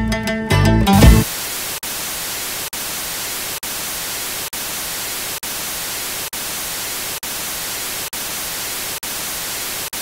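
Plucked-string background music ending about a second in, then a steady hiss of TV static, broken by a short gap about once a second.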